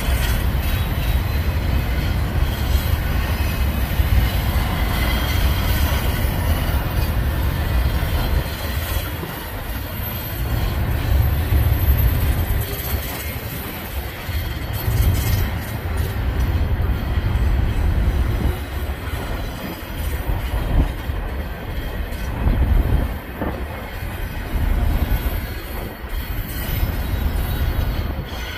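Union Pacific double-stack intermodal freight train's container well cars rolling past: a steady low rumble of steel wheels on rail, with a faint high wheel squeal now and then.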